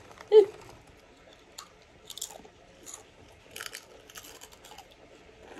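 Flamin' Hot Lime Doritos crunched between the teeth in close-up chewing, a few short crisp crunches at irregular intervals, after a brief vocal sound near the start.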